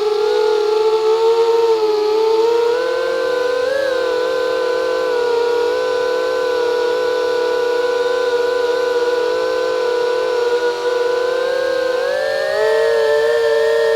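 Cinewhoop quadcopter's motors and ducted propellers whining, a steady pitched drone whose pitch drifts with throttle, dipping a couple of seconds in and rising near the end.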